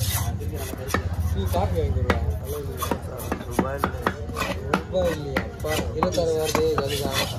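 Large knife cutting through a white pomfret and striking a wooden chopping block, a run of sharp, irregular taps and knocks over a steady low hum.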